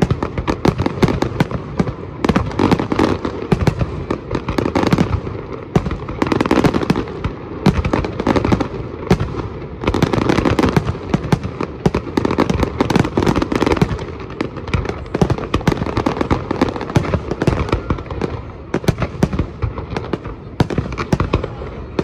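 Fireworks display going off in a dense, continuous run of bangs and crackles, many reports a second with no pause.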